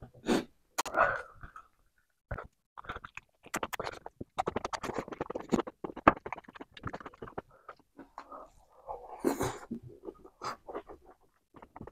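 Close-miked eating sounds: wet, smacking chewing with the mouth, and the sticky squelch of a bare hand mixing rice into gravy, a quick run of small wet clicks.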